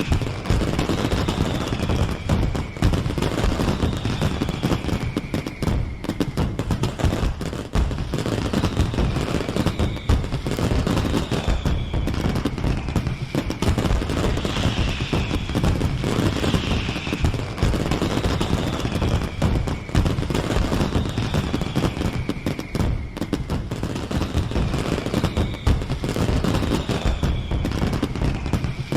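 A continuous fireworks barrage: dense, rapid bangs and crackles without a break, with short descending whistles from rockets recurring every second or two.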